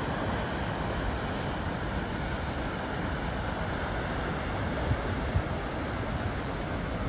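Goðafoss waterfall: a steady rush of falling water, with a couple of brief wind bumps on the microphone about five seconds in.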